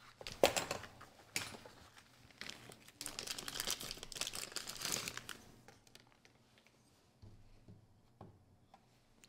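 Paper packaging set down with a rustle and a knock in the first second, then a clear plastic sleeve crinkling for about two seconds as a folding pocket knife is slid out of it; after that, only a few faint clicks.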